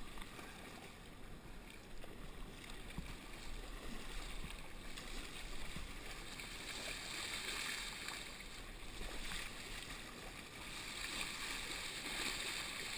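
Water splashing and rushing around a Northshore Atlantic sea kayak's hull and paddle blades as it is paddled through choppy sea, swelling in brief louder rushes, with wind rumbling on the microphone.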